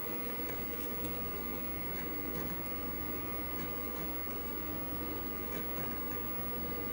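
Vintage IBM PC's disk drives and fan running with a steady hum and faint whine while PC-DOS files copy from a floppy disk onto the 20 MB IBM-branded Western Digital MFM hard disk.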